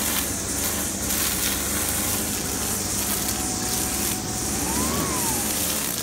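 Gas string trimmer running steadily, its engine note under the hiss of the line cutting through ivy.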